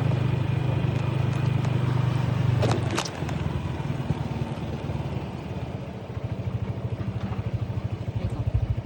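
An engine running: a steady low hum, then from about three seconds in a rapid, even putter that grows louder near the end. A brief whoosh comes just as it changes.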